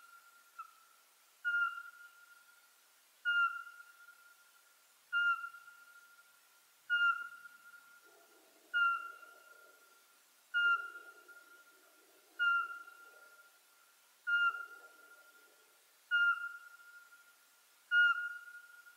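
Eurasian pygmy owl singing: a single short, piping whistle on the same pitch, repeated evenly about every two seconds. This monotonous series is the species' territorial song.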